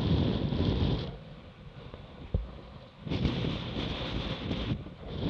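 Wind buffeting the microphone of a camera mounted low on a Laser Radial dinghy's hull, with water rushing and splashing against the hull as the dinghy goes over on its side. The noise drops away for about two seconds in the middle, broken by a single sharp knock, then comes back.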